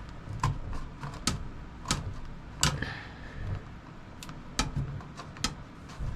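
Irregular sharp clicks and taps, about a dozen, from hands working the wiring and plastic LED light fittings into the van's ceiling.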